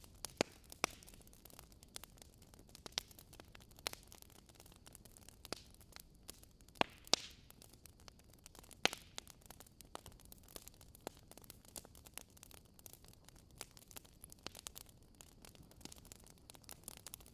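Wood fire crackling in a fireplace: irregular sharp pops and snaps over a faint steady hiss.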